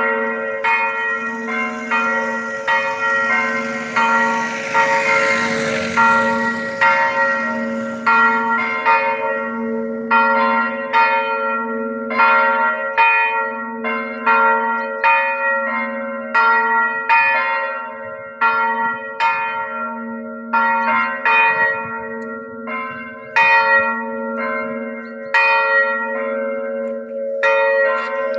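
Church bells ringing: a higher bell struck in a quick, even series, about one and a half strokes a second, over the steady, swelling hum of deeper bells.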